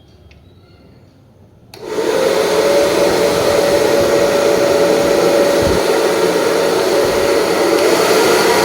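Wahl Super Dry hair dryer switched on with a click about two seconds in, spinning up and then running steadily at full speed: a loud rush of air over a steady motor whine.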